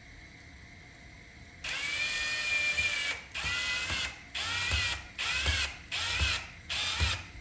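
A power drill run in one longer burst and then about five short bursts, its motor whine dipping in pitch under load with each burst, as it drives the screw of a hose clamp on a rubber oil line.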